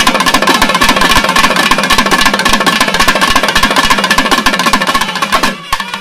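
Thavil drums played in a fast, dense roll under a steady held nadaswaram note. The playing breaks off just before the end.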